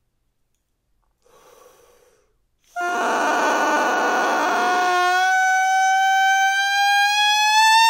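A bassoon reed blown on its own: a quick breath in, then a loud crow, a buzzing sound with many pitches at once, from about a third of the way in. About two seconds later it narrows into one clear tone that slowly rises in pitch as the lips tighten.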